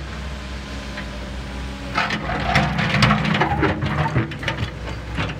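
Tracked hydraulic excavator's diesel engine running steadily; about two seconds in it works harder and a run of knocks and clatter begins as the bucket moves down among the stone blocks and dirt.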